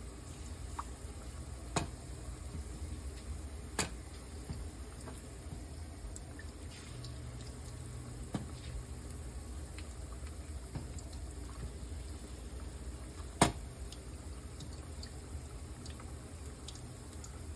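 Battered chicken wings deep-frying in hot oil: a steady sizzling and bubbling, with a few sharp clicks, the loudest about thirteen seconds in.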